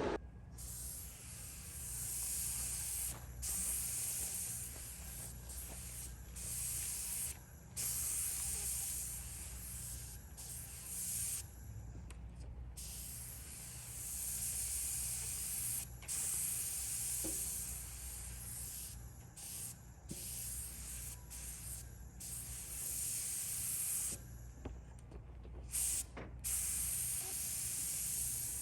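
Compressed air hissing from an air tool in repeated bursts of a few seconds, each cut off by a short pause, over a steady low hum.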